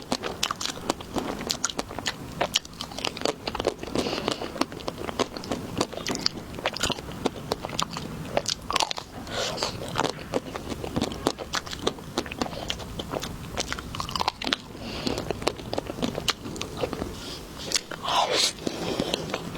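Close-miked biting and chewing of jasmine pineapple: a steady run of crunchy bites and quick, irregular mouth clicks.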